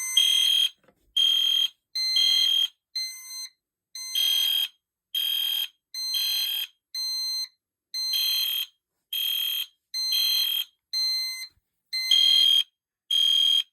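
Edwards Genesis electronic fire alarm horn sounding in alarm, a loud, high horn tone in evenly spaced pulses about once a second, set off by the pulled pull station.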